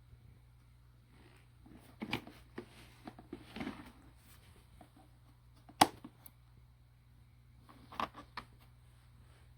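A few scattered clicks and knocks over a faint steady hum, the sharpest about six seconds in.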